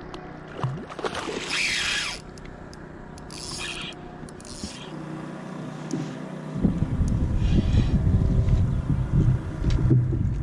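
Wind buffeting the microphone, a low rumbling noise that starts suddenly about two-thirds of the way through. Before it there are only a few brief, quieter noises over the sound of open water.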